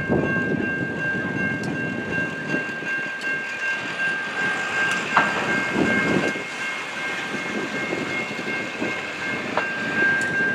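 A freight train rolling over a road grade crossing, its wheels rumbling and clacking irregularly on the rails. A steady high-pitched ringing tone sounds over it throughout, breaking off briefly twice.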